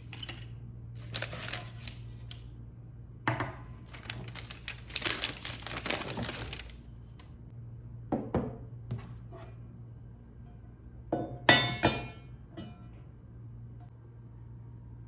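Objects being handled: scattered clinks, knocks and rustling in several separate bursts, with a low steady hum underneath.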